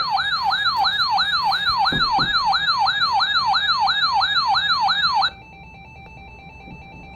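Electronic siren in a fast yelp, its pitch sweeping up and down about three times a second, cutting off abruptly about five seconds in. A much fainter repeating beep follows.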